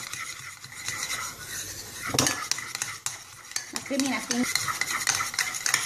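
A fork beating egg yolks and grated parmesan in a ceramic bowl, its tines clicking rapidly and irregularly against the sides of the bowl.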